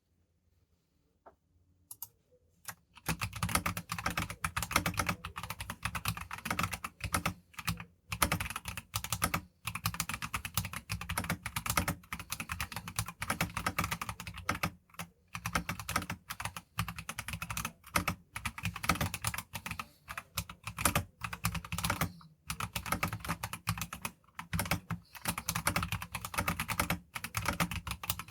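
Mechanical keyboard with stock Akko CS Lavender Purple switches and XDA-profile keycaps, typed on at a fast, steady pace. A couple of single keystrokes come first, and continuous typing starts about three seconds in, broken by short pauses.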